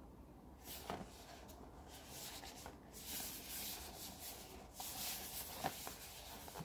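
Hands turning over and rubbing a small cardboard Echo Dot retail box, a faint rustling and scraping with a few light knocks.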